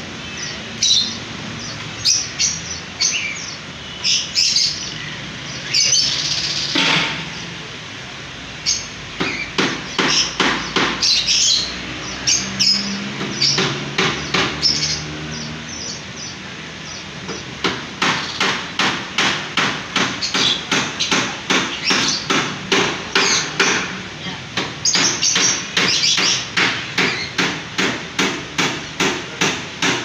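Lutino peach-faced lovebirds calling: short, sharp, shrill chirps, scattered at first and then repeated in a quick steady run of about two or three a second through the second half.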